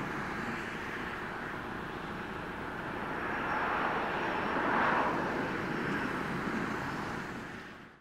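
Steady outdoor rumble and hiss, like wind or distant engine noise, swelling about four to five seconds in and fading out at the end.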